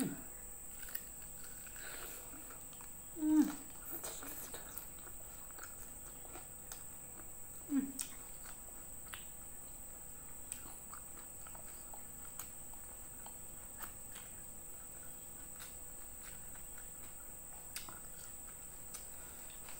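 Close-up chewing of fried fish and rice, with many small wet mouth clicks throughout. Two short low hums, about three and eight seconds in, are the loudest sounds.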